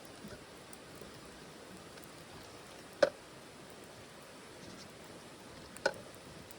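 Wood fire burning in a titanium wood stove: a steady faint hiss with two sharp crackling pops about three seconds apart.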